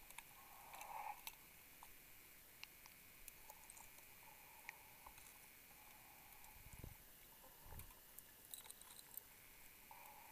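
Near silence underwater from a diver on a closed-circuit rebreather. Faint breathing sounds in the loop come and go every few seconds, with no exhaust bubbles, along with a few small clicks and two faint low thumps near the end.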